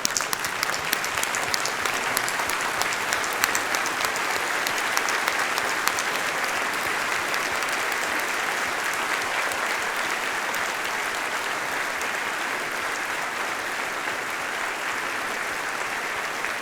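A large audience clapping in sustained applause, steady and dense throughout.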